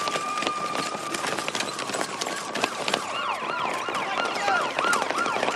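Emergency vehicle siren: a long, slowly wavering wail that switches about halfway through to a fast yelp of about three rises and falls a second, over a clatter of sharp knocks.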